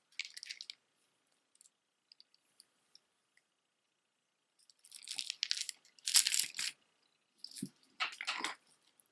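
Wooden, coconut-shell and seed beads of a chunky necklace clacking and rattling together as it is handled and set down. The clatter comes in three bursts, the loudest about six seconds in.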